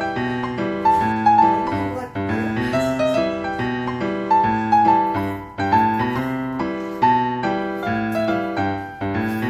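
Background piano music: a melody of short, evenly paced notes over a lower accompaniment.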